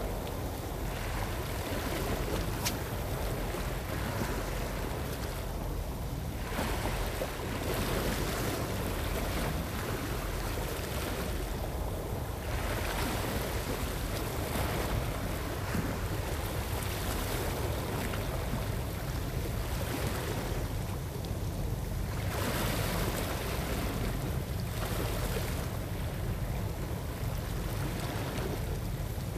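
Small sea waves washing against a rocky shore, swelling and falling back every several seconds, over a steady low rumble of wind on the microphone.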